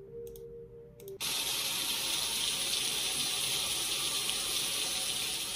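A low steady two-note hum stops abruptly about a second in, after two short clicks. A loud, steady rushing hiss starts in its place, like an ambient rushing-water or wind effect on a video soundtrack.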